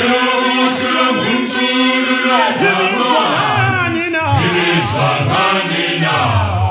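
Male choir singing a cappella in Zulu, many voices in harmony with wavering, sliding pitches.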